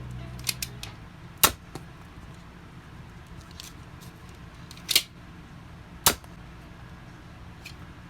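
Plastic Nerf blaster being handled: a few light clicks, then three sharp plastic snaps, about a second and a half in, at about five seconds and a second after that, with a faint click near the end.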